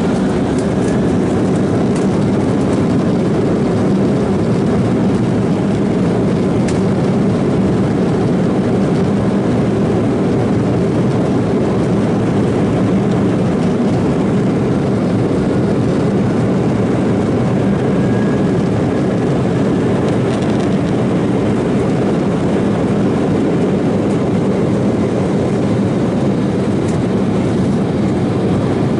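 Embraer 190's twin turbofan engines at takeoff thrust, heard inside the cabin over the wing, with the rumble of the takeoff roll as the jet accelerates down the runway. The noise is loud and steady.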